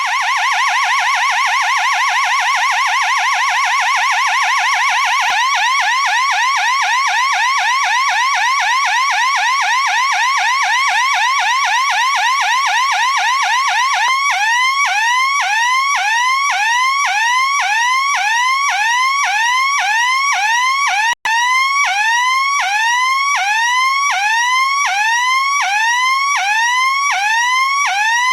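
A 96 x 96 panel-mounted triple-tone industrial hooter sounding its alarm tones as loud, repeating rising electronic whoops. At first it gives a fast warble of about five rising sweeps a second, with a slight change in tone about five seconds in. About fourteen seconds in it switches to a slower pattern of about two rising sweeps a second, with a momentary break about 21 seconds in.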